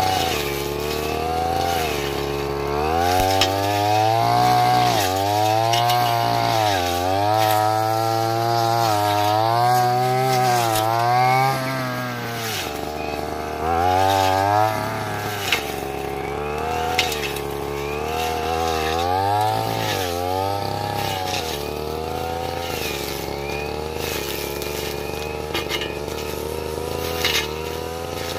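Stihl brush cutter's small petrol engine, revving up and down in quick repeated swells as it cuts through scrub and grass, then running more evenly in the second half, with scattered sharp ticks.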